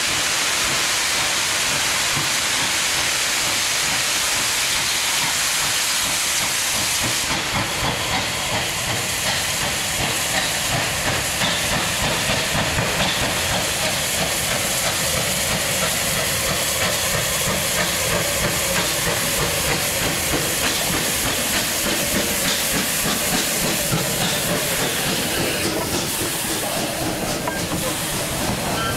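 Unrebuilt Bulleid West Country Class steam locomotive 34092 City of Wells hissing steam loudly and continuously as it works out of its own steam cloud and passes close by. The sound grows rougher about a quarter of the way in.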